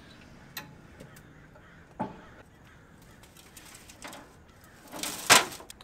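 Metal tongs and a disposable aluminium foil pan being handled at an offset smoker's grate as a rib roast is lifted off into the pan. Scattered clicks and knocks, then a louder clatter about five seconds in.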